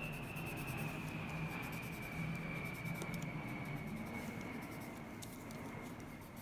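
Colored pencil scratching across frosted shrink plastic as box-check lines are drawn over in a different direction, with a low steady hum and a thin high tone underneath.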